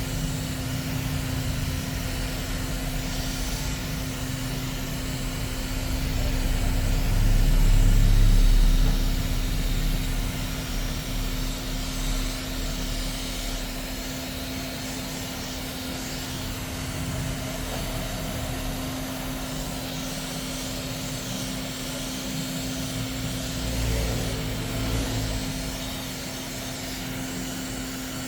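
Steady low rumble under a constant low hum, swelling loudest about eight seconds in and again briefly near the end.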